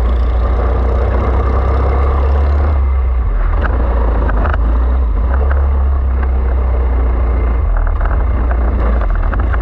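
Onboard recording of a 4SS-class four-stroke racing kart with a Torini engine, running on a wet track: a loud, steady low rumble with a hiss over it and a few light clicks.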